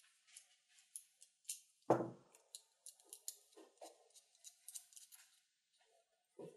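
Small clicks and light scrapes of hands handling a small FPV video transmitter, its wires and threaded SMA antenna connector, with a dull knock about two seconds in and another near the end.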